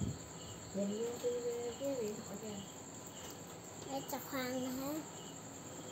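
Crickets chirping steadily in the background, with a soft voice murmuring faintly twice.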